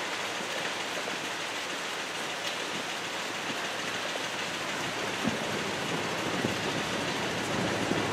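Freight train wheels rolling on the rails as the end of a short train passes and moves off, a steady rushing noise with a few clicks of wheels over rail joints in the second half.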